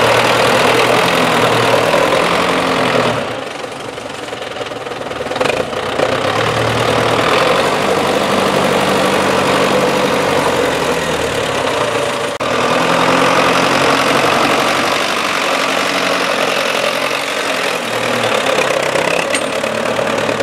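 MTZ-82.1 tractor's four-cylinder diesel engine running under load as it pulls a mounted plow through wet soil, dropping quieter for a couple of seconds a few seconds in, then pulling steadily again.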